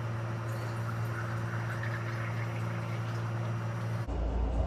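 Liquid running steadily into a cup of ice to fill it to the top, over a steady electric hum; both cut off abruptly about four seconds in.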